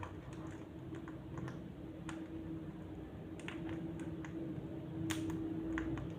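Irregular light clicks and taps, a few each second, over a steady low hum.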